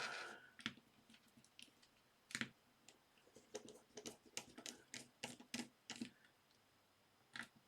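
Faint, irregular clicking and ticking of a small screwdriver working a tiny screw out of a phone's plastic housing, with a busier run of clicks in the middle.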